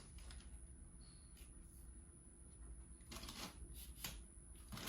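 Faint rustling and scraping handling noise from an extendable tripod stand being pulled up to full height, with a few short scrapes in the second half over a low steady hum.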